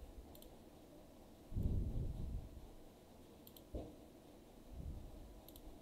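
Computer mouse clicking a few times, each click a quick double tick of press and release, with a soft low rumble on the microphone about one and a half seconds in.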